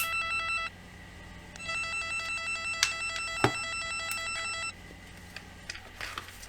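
NF-388 cable tester's tone probe sounding its cable-tracing tone, a rapidly pulsing electronic warble. It stops about a second in, comes back for about three seconds, then cuts off, with a few sharp clicks in between.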